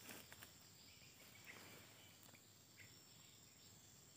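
Near silence: faint, steady, high-pitched insect chirring from the swamp, with a few faint short chirps.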